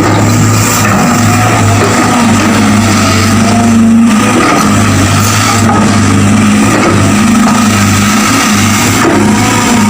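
Excavator diesel engine running steadily with a deep, even hum and a faint steady high whine over it.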